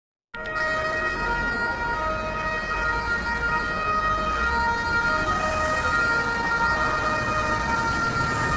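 Spanish ambulance siren starting abruptly after a moment of silence, then sounding a steady two-tone call that alternates between two pitches, with a low vehicle rumble underneath.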